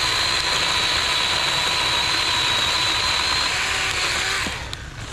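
Chainsaw running steadily at high speed, then stopping abruptly about four and a half seconds in.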